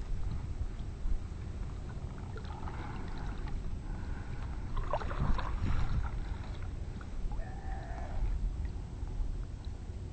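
Steady low rumble of wind and water on the open water around a kayak, with a few faint, indistinct sounds in between.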